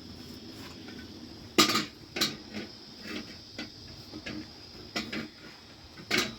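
Irregular clatter of hard objects being handled and set down: about nine knocks and clinks, the loudest about a second and a half in, with another strong one near the end.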